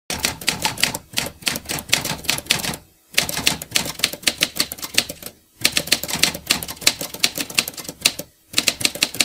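Typewriter keystrokes clattering rapidly in runs, broken by brief pauses about every two and a half to three seconds, as a sound effect for text being typed onto the screen.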